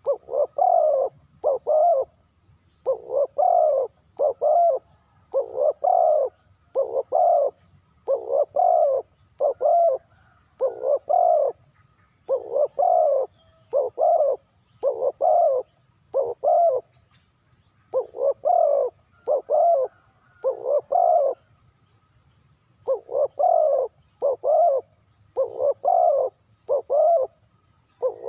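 Spotted dove cooing: deep, hollow coo notes repeated about twice a second in phrases, with a short pause between phrases and a longer break about three-quarters of the way through.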